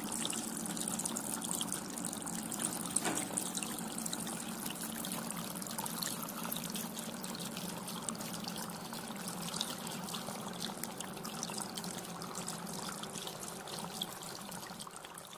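Steady trickle of water from a tiered terracotta tabletop fountain, spilling over the lips of its clay bowls into the dishes below.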